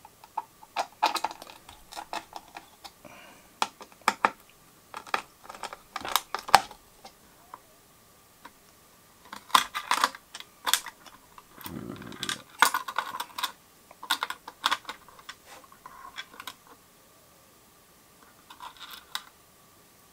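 Irregular small clicks and taps of a screwdriver and metal parts as the screws of a motherboard's CPU socket retention bracket are undone and the bracket is lifted off.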